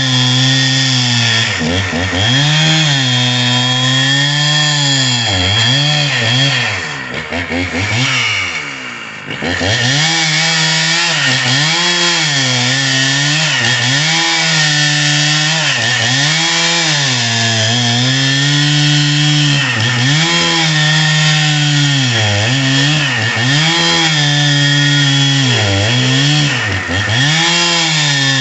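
Husqvarna 61 two-stroke chainsaw at full throttle ripping lengthwise through a log, its engine note dipping and recovering every second or two as the chain loads in the cut. About seven seconds in the engine drops off briefly, then comes back up to speed.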